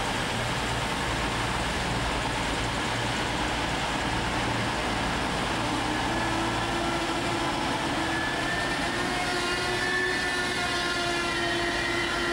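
Virgin Voyager diesel train at the platform: a steady low engine drone, joined about halfway through by a whine that rises slightly in pitch and then holds steady.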